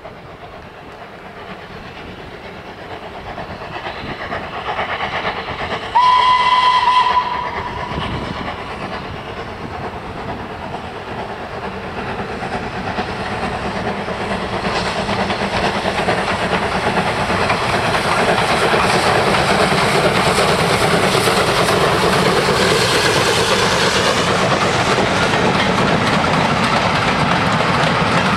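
Steam locomotive hauling a goods train, growing louder as it approaches; it sounds one whistle of a little over a second about six seconds in. The train then runs past steadily and loudly, with wheels clicking over the rail joints.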